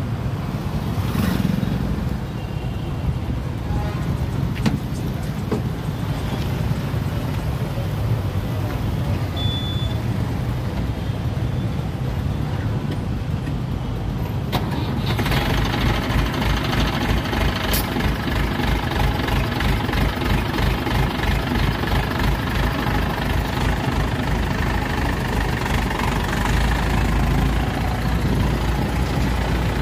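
Mobile crane's diesel engine running steadily, then about halfway through revving up and running louder with a low, even throb as the operator works the control levers.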